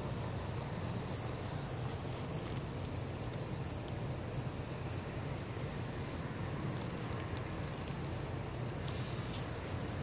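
A cricket chirping steadily: short, high, evenly spaced chirps a little under two a second, over a low background rumble.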